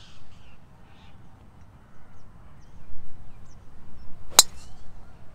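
A driver striking a golf ball off the tee: one sharp crack about four seconds in, from a cleanly struck drive.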